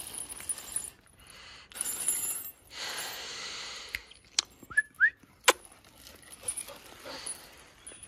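A dog's iron chain leash rattling and clinking as the dog moves, with a rustling stretch and then several sharp metal clinks, and two short rising squeaky chirps among the clinks.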